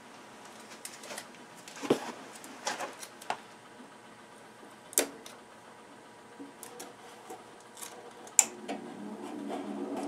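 Scattered clicks and taps of hands pressing tape over a gas furnace's access-door switch. Near the end the furnace's fan motor starts and its rush of air grows steadily louder.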